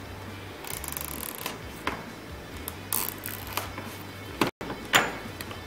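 Packaging of a keyboard box being opened and handled: brief rustles and scrapes with several sharp clicks and knocks, the loudest about five seconds in.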